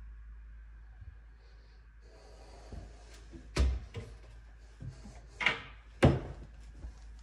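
Kitchen cabinet doors being opened and closed: a sharp knock about three and a half seconds in, then two more near the end, the last the loudest, with a few lighter clicks between them.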